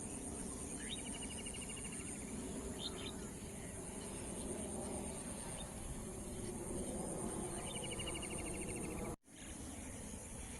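Evening countryside ambience: a steady high-pitched insect chorus, with a bird giving a rapid trill of repeated notes about a second in and again near eight seconds, and a couple of short chirps around three seconds, over a low steady rumble. The sound drops out for an instant about nine seconds in.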